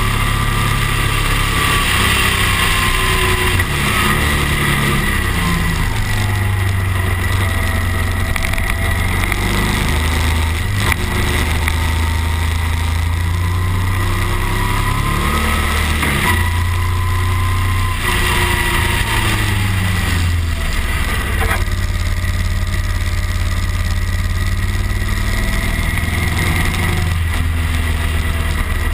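Cruiser motorcycle engine running under way on a winding road, its note rising and falling repeatedly as the throttle is opened and eased, with a steady rush over it.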